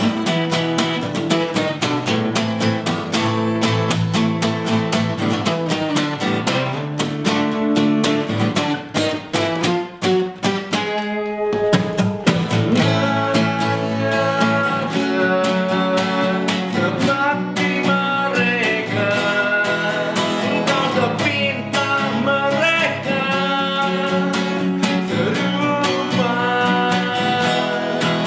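Two acoustic guitars playing together live, picked and strummed, with a man singing over them in the later part; the playing thins briefly about ten seconds in.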